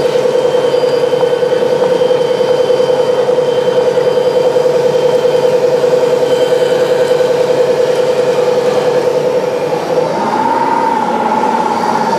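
Radio-controlled Caterpillar 385C scale excavator's motors whining steadily as it moves on its tracks. About ten seconds in, the whine shifts to a higher pitch.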